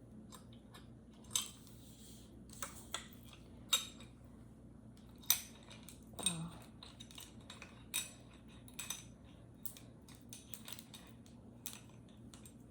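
Parts of an LED desk lamp being handled and fitted together: a dozen or so irregular sharp clicks and light clinks of hard plastic and metal.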